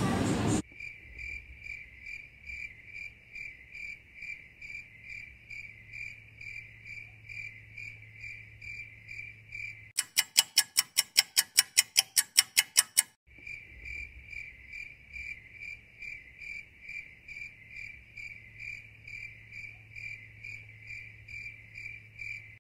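Cricket-chirping sound effect: a steady high chirp repeating two or three times a second. For about three seconds in the middle it gives way to loud, fast clicks, about five a second.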